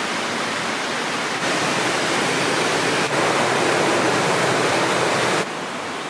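Waterfall rushing: a loud, steady, even wash of falling water. Its level jumps up abruptly about 1.5 and 3 seconds in and drops sharply near the end.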